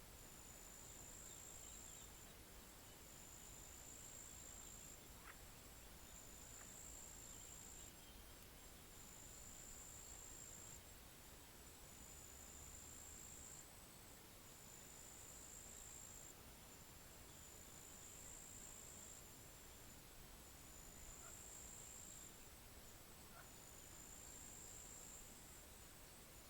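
Faint, high-pitched insect trill repeating in bursts of about a second and a half to two seconds, roughly every two seconds, over a faint steady hiss. A few brief faint chirps are scattered through.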